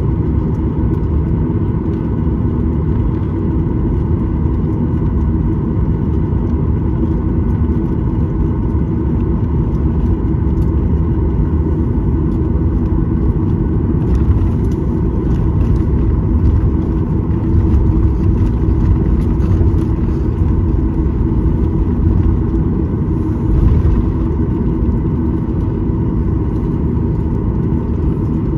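Cabin noise of a Boeing 737-900 taxiing, heard from a window seat behind the wing: the CFM56 turbofan engines running at low taxi power as a steady rumble with a steady whine over it, with a slight swell in loudness about halfway and again near the end.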